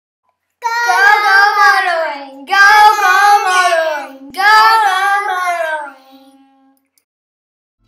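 Sung intro jingle: a high voice sings three short phrases, each sliding down in pitch, and the last one fades out about six seconds in.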